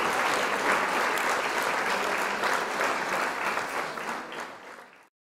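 Spectators in a sports hall applauding, a dense patter of many hands clapping that fades and then cuts off abruptly about five seconds in.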